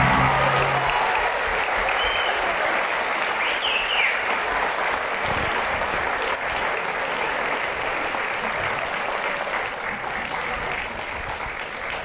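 Audience applauding steadily, slowly dying down, as the last of the music stops about a second in.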